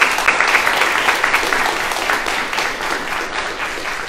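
Audience applauding: dense clapping from many hands, loudest at first and easing off slowly toward the end.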